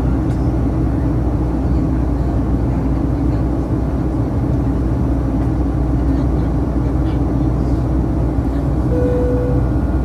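Cabin noise of a Boeing 737-800 on approach: the steady drone of its CFM56-7B turbofan engines and airflow, with a low hum underneath. A brief single tone sounds about nine seconds in.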